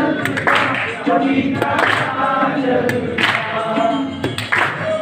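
A group of voices singing together, several people on one tune.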